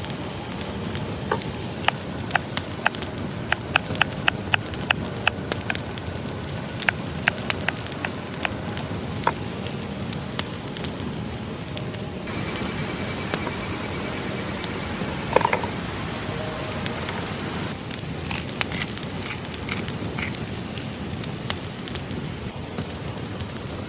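Wood campfire crackling steadily, with frequent sharp pops and snaps that are thickest in the first half.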